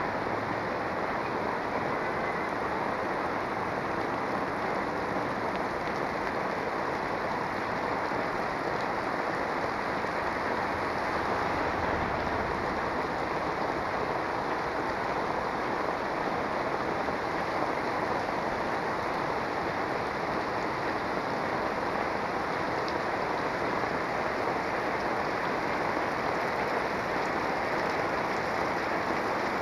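Heavy rain falling steadily, a dense even hiss and patter.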